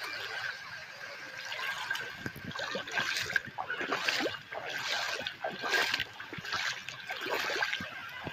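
High-tide water lapping and splashing around flooded mangrove trunks, in a string of washes about a second apart.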